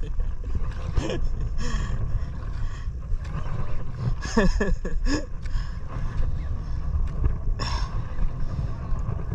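Steady low rumble of wind and sea around a small fishing boat, with a few short rushing noises and a brief bit of a man's voice about four seconds in.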